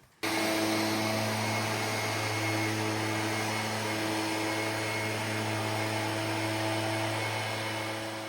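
Iron Rhino IR1200 mini skid steer's engine running steadily at a constant speed, a continuous even hum over a wash of mechanical noise, fading out near the end.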